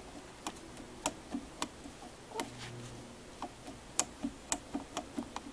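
Light, irregular clicks of the metal parts of a disassembled electronic EGR valve being handled. The clicks are sparse at first and come faster from about four seconds in.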